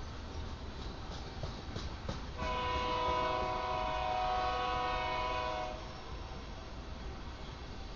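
Freight train's locomotive horn sounding one long chord of several steady tones for about three seconds, starting a couple of seconds in, over the low rumble of loaded tank cars rolling past.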